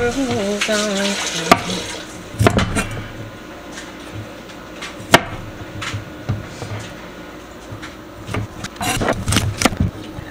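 Chef's knife cutting broccoli on a wooden cutting board: scattered sharp knocks of the blade striking the board, with a quick cluster of chops near the end.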